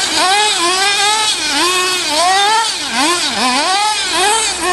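Radio-controlled buggy's small engine revving up and down again and again, its pitch rising and falling about twice a second as the throttle is blipped.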